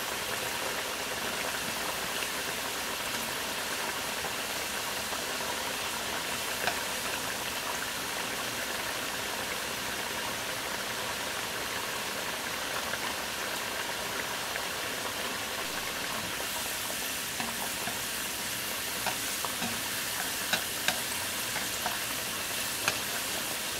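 Raw potato sticks deep-frying in plenty of oil at medium heat, their first fry: a steady sizzle of bubbling oil, with a few sharp clicks in the second half.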